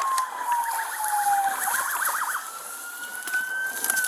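Police car siren wailing, its pitch sliding slowly down and then back up, with a fast yelping warble for about a second in the middle.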